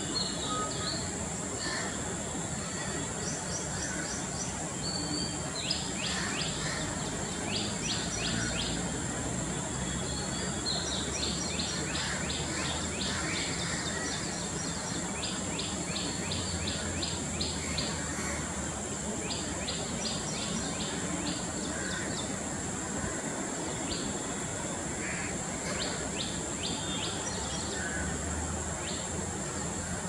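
Small birds calling in the background, repeating series of quick, high, clipped notes, about six or seven a second, that come and go. Under them run a steady high-pitched whine and a constant low rumble of ambient noise.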